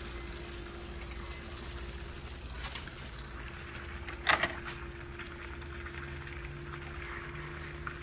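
Microwave oven running with a steady hum while an iPhone 6 sparks and burns inside it. One sharp crack about four seconds in, with a fainter one earlier.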